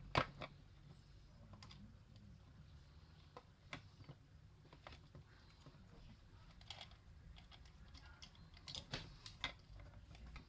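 Faint, scattered small plastic clicks and taps as the parts of a mini radio are handled and pressed together by hand. The sharpest click comes just after the start, and a quick run of clicks comes near the end.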